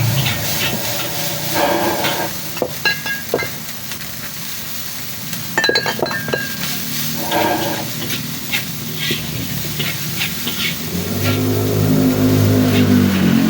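Wok frying with a metal spatula clanking and scraping against the wok over a steady sizzle. A vehicle engine grows louder near the end.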